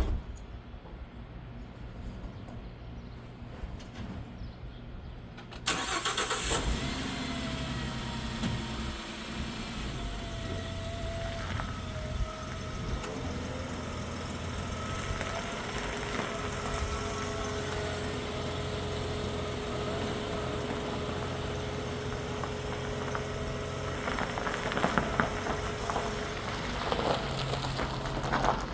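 A van engine starts about six seconds in and then keeps running steadily.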